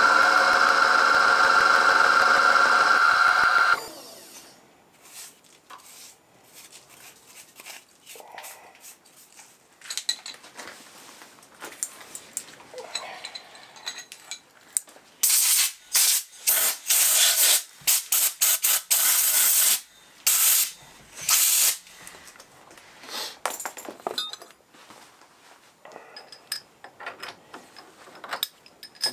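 Milling machine spindle running with an end mill in a mild steel block, a steady whine that stops about four seconds in. Then come scattered small clicks and knocks, and a run of loud, short hissing bursts around the middle.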